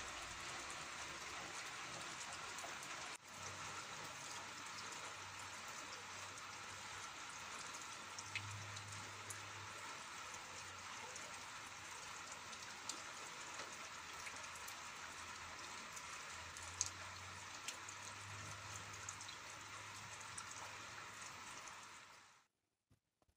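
Steady rain falling, an even hiss with scattered individual drops ticking. It breaks off briefly about three seconds in and fades out near the end.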